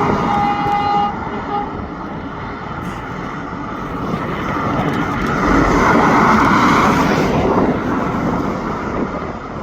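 Train horn holding a single note that cuts off about a second in, followed by a short toot; then the train's running noise swells as it passes, loudest a few seconds later, and fades.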